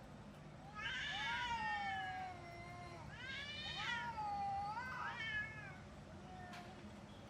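Cat caterwauling as a fight threat: two long, wavering yowls, the first about a second in and the second about three seconds in, then a short yowl near the end.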